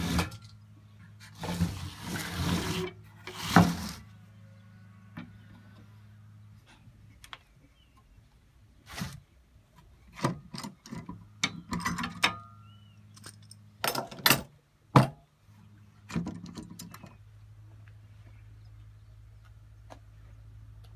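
Wooden frame pieces and a metal bar clamp being handled and the clamp tightened on a frame corner: scattered knocks, clicks and scrapes of wood and metal, with rustling in the first few seconds, over a steady low hum.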